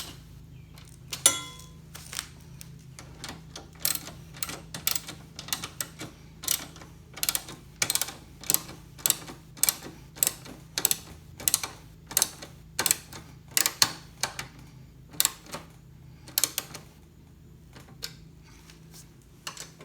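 13 mm socket ratchet clicking in short back-and-forth strokes, about two clicks a second, as cap screws and nuts are tightened; the clicking stops a few seconds before the end.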